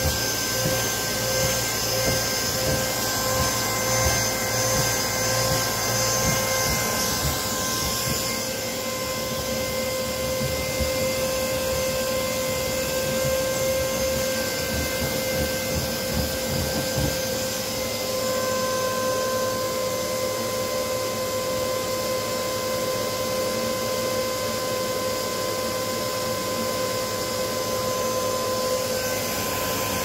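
Vacuum cleaner running steadily with a high motor whine while it is used to groom a Bernese mountain dog's thick coat. The low end is uneven for the first half and steadier after about seventeen seconds.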